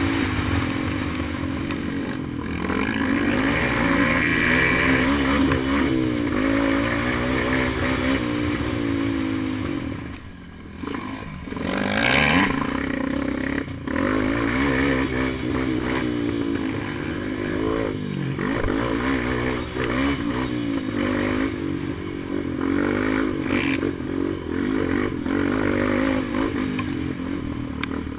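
Single-cylinder off-road racing engine heard from on board, revving up and down as it is ridden hard along a dirt trail. The throttle is shut briefly about ten seconds in, then it revs hard again.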